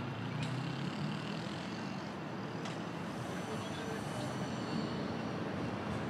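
Street traffic noise from passing road vehicles, steady throughout, with people's voices in the background.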